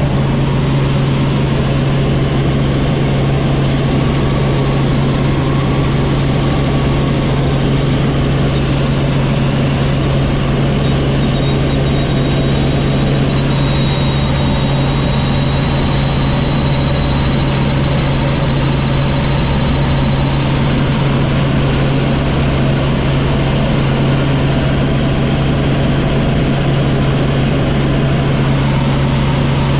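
Helicopter in flight, its engine and rotors making a loud, steady drone that does not change.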